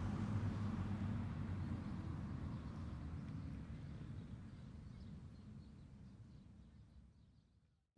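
Low rumble of a vehicle engine, fading away gradually to silence near the end.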